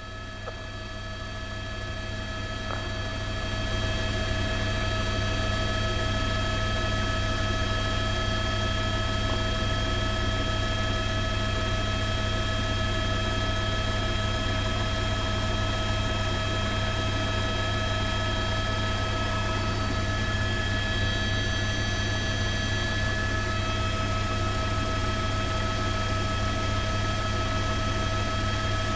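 News helicopter's engine and rotor heard from aboard, running steadily: a low hum under a steady multi-tone whine, fading up over the first few seconds.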